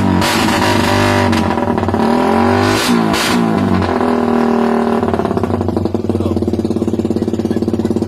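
Suzuki Raider 150 motorcycle engine revved through an aftermarket exhaust in quick throttle blips, then dropping back to a steady idle about five seconds in.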